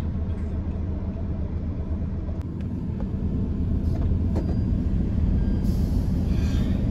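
Diesel car engine idling, heard from inside the cabin, with a few light clicks and, near the end, a short hiss of compressed air from a tyre inflator hose at the wheel.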